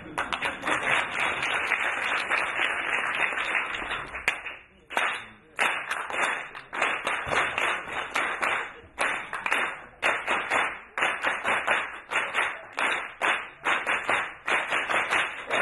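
An audience applauding with dense, continuous clapping. After a short break about five seconds in, they clap together in a rhythm of repeated bursts.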